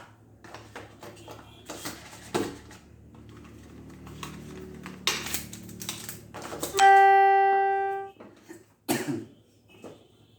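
Handling of phone packaging, with scattered clicks and rustles. About seven seconds in a single loud ding-like chime sounds and fades out over about a second, followed by a sharp knock.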